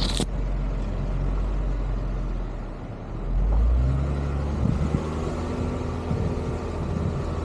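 Four-wheel-drive vehicle driving, its engine running steadily under road and wind noise. It eases off about three seconds in, then picks up again as the vehicle accelerates. A brief sharp clatter comes right at the start.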